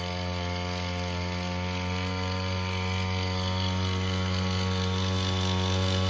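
Small engine of a motorized disinfectant sprayer running steadily at a constant speed, growing slightly louder.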